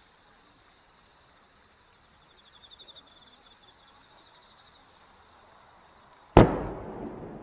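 Aerial firework shell going off with a single loud bang about six seconds in, dying away in a long echoing rumble, over a steady high trill of night insects.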